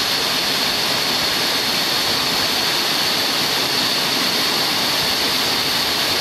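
A small waterfall pouring in a steady, unbroken rush of water.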